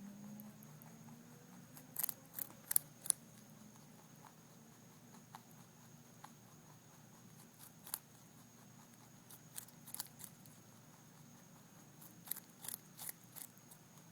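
Rabbit crunching a mini carrot: short, sharp crunches in bursts, four in quick succession about two seconds in, a few scattered ones, and another quick run near the end.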